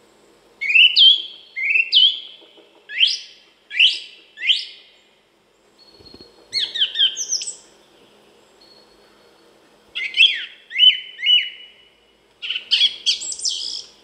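A thrush singing: five short whistled phrases with pauses between them, several made of one note repeated two or three times.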